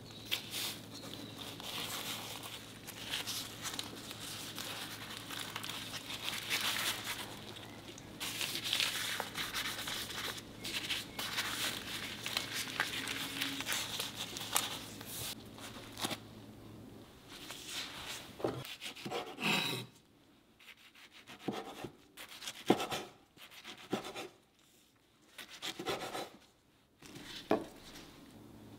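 Plastic-gloved hands rustling over a sheet of dried laver (gim) as a gimbap is filled and rolled on a wooden board: a continuous crinkling, rubbing noise. Past the middle it thins to a few separate short crackles and taps.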